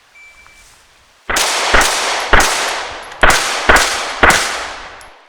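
A shot timer's short start beep, then six 9mm pistol shots from a Glock 34 in two quick strings of three, the first shot about a second after the beep. Each shot trails off in a decaying echo.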